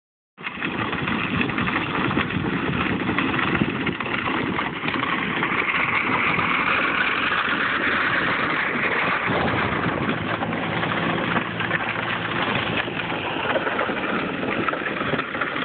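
Four-wheeler (ATV) engine running steadily, with a rushing noise over it; the sound shifts about nine seconds in.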